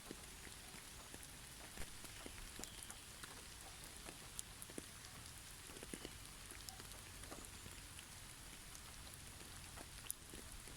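Faint, steady patter of heavy snowfall on snow-covered trees, with scattered sharp ticks.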